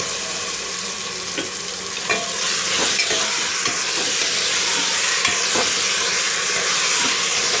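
Raw mutton pieces sizzling in hot oil with sautéed onions and ginger-garlic paste in an aluminium pressure cooker, stirred with a metal spatula that scrapes and knocks the pot now and then. The sizzle grows louder about two seconds in.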